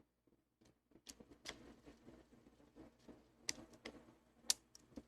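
Faint metallic clicking and light scraping from picking tools working in the keyway of a Master Lock No. 3 padlock. The clicks come sparsely at first, then in a quick irregular run from about a second in.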